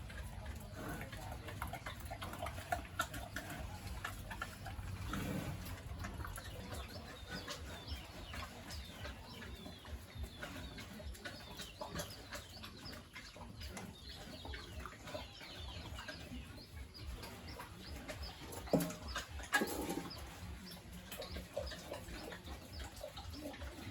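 Farmyard sounds: chickens clucking and many small birds chirping over a low background rumble, with two louder thumps near the end.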